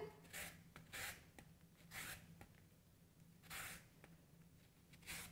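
Orange peel rasped across a handheld fine grater: about five faint, short scratchy strokes, irregularly spaced.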